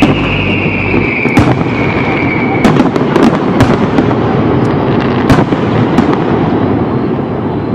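Fireworks display: dense continuous crackling with sharp bangs of aerial shells bursting every second or so. Over the first part a high whistling tone slowly falls in pitch, then stops about two and a half seconds in.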